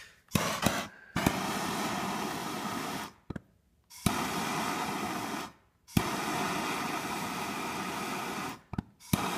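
Handheld gas torch hissing in several bursts of a second or two each, every burst starting with a sharp click, as the flame heats a starter-generator wire terminal to take solder.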